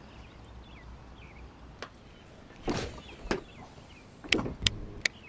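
A few sharp clicks and short knocks from a baitcasting rod and reel being handled, with a brief rush of noise about halfway through and the loudest cluster of clicks near the end.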